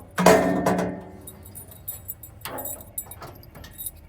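Metal engine hood of a RIPPA RS06 mini skid steer being opened: a loud clang with a brief ringing tone at the start, then light metallic rattling and clinking.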